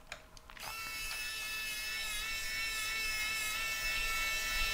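Small cordless electric screwdriver whirring steadily as it drives an M3 screw into a threaded tab, starting about half a second in.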